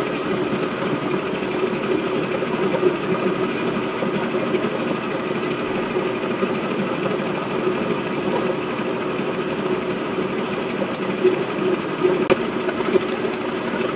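Grinding mill running steadily, grinding ginger into powder as it is fed through the hopper, with a few louder knocks near the end.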